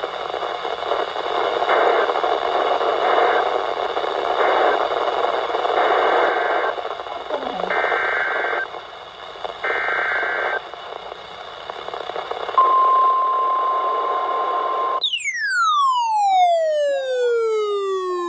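Weather-radio broadcast over static: three short bursts of EAS (SAME) data tones ending the warning, then three longer data bursts heading the next alert, then the steady single-pitch alert tone, cut off after a couple of seconds. A falling sweep of several tones follows, dropping steadily in pitch.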